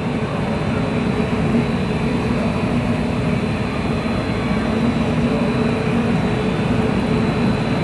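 Hurricane-simulator booth's blowers running at full speed, about 78 miles an hour: a steady rush of wind with a low fan hum underneath.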